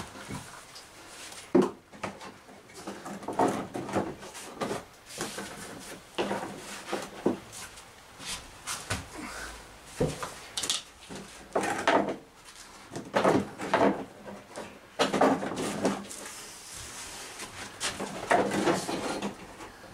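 Irregular knocks, creaks and plastic clatter of a Kia Carens' rear bumper cover being pulled, prodded and twisted to free it from its clips and fixings, in a small echoing garage.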